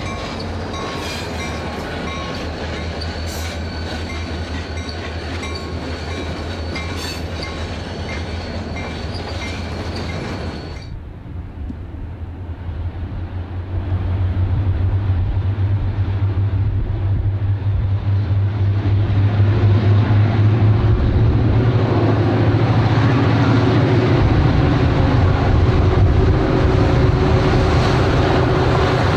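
Three EMD diesel locomotives (GP38 and GP40 types) working hard as they pull a freight train upgrade: a deep, steady engine rumble. For the first ten seconds the units pass close with a steady high whine over the rumble; after an abrupt change about eleven seconds in, the engines approach and grow louder, staying loud to the end.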